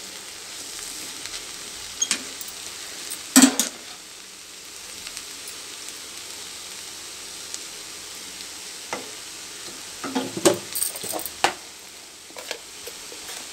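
Ponnaganti greens and chana dal frying gently in oil in a kadai on low heat, a steady soft sizzle. A silicone spatula scrapes and knocks against the pan a few times, loudest about three and a half seconds in, with a cluster of knocks a little after ten seconds.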